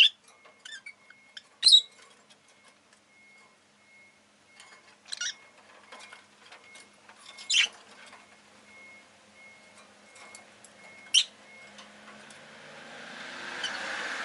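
Rosy-faced lovebird giving short, sharp chirps, five in all, spaced a few seconds apart, with faint ticks between them. Near the end a broad rush of passing traffic noise swells up.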